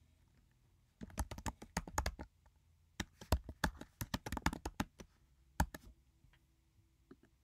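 Keystrokes on a computer keyboard in two quick runs of clicks, one about a second in and a longer one about three seconds in, then a single click and a few faint taps near the end.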